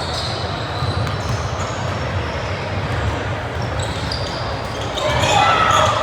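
Basketball game sound in a gym hall: a ball bouncing on the floor, short high squeaks and a steady crowd murmur. About five seconds in, a louder burst of voices rises.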